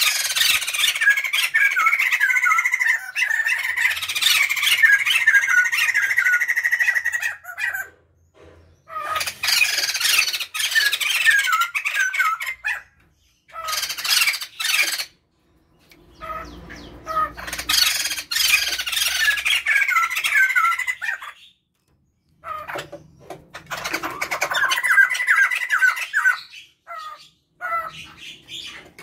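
A male and female laughingthrush (poksay jambul) calling loudly together in a noisy chattering chorus of rapid, quick falling notes. The chorus comes in about five bouts of several seconds each, broken by short pauses.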